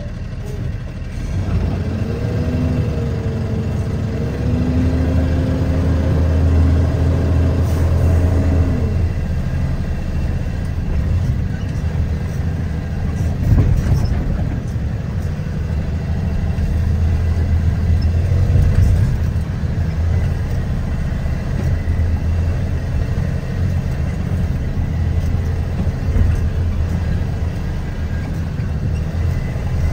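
Vehicle engine and road rumble heard from inside the cab while driving over rough ground. About two seconds in, a steady engine tone rises and holds until about nine seconds. A single knock comes about halfway through.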